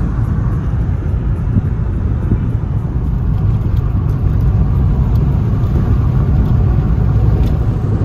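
Steady low rumble of engine and road noise inside a moving car's cabin while driving.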